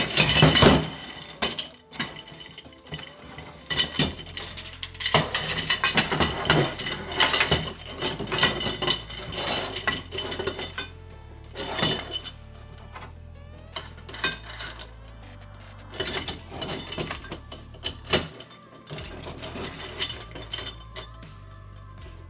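Metal parts of an Alaskan chainsaw mill clinking and clanking as they are handled and fitted together, with many sharp knocks, the loudest right at the start.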